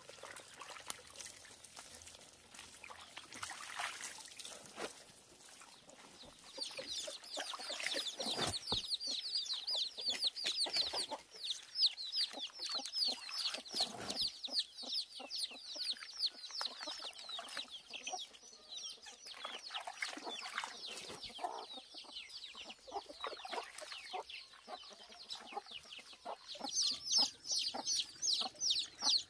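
A flock of chickens peeping and clucking: a thick, rapid chorus of high peeps sets in about a fifth of the way in and keeps going, with scattered sharp taps through it.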